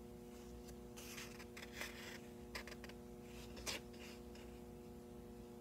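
Faint handling of a large hardcover picture book: a few soft paper rustles and scrapes from the hands holding it, over a steady electrical hum.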